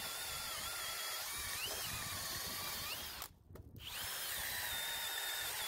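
Kobalt 24-volt brushless cordless drill on high speed boring through wood with a 1-inch spade (speed bore) bit, its motor whine wavering under load. About three seconds in it stops for half a second between the first and second hole, then bores again.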